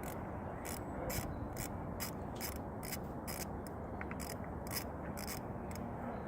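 Hand ratchet clicking in steady, evenly spaced strokes, about two to three clicks a second, as a bolt is turned.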